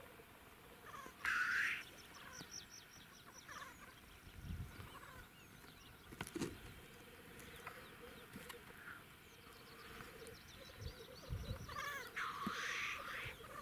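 Black grouse calling at a lek. A low, pulsing bubbling song runs on in the background. A hissing chuff sounds about a second in, and a longer one comes near the end.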